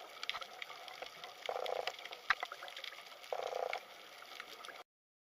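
Underwater sound picked up by a camera below the sea surface: scattered clicks and crackles in the water, with two short muffled swells of noise about two seconds apart. The sound cuts off abruptly near the end.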